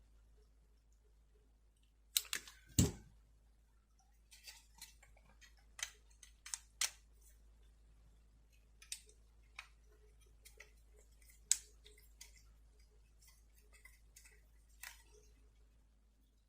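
Scattered small clicks and taps of a wheel and axle being worked on a diecast model car by hand, with two sharper clicks about two to three seconds in and another near the middle.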